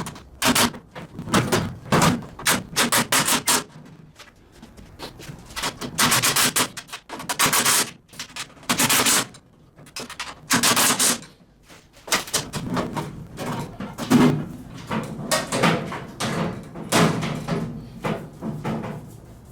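Caster mounting hardware on a steel tool cart being tightened: repeated bursts of rapid clicking and rattling, each lasting up to about a second, with short pauses between them.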